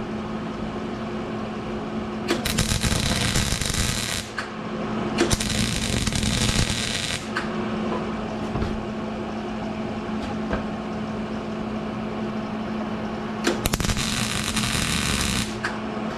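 MIG welder arc crackling in three separate bursts of about two seconds each, welding a broken stud onto a vent wing window frame right beside the glass, with a steady hum underneath.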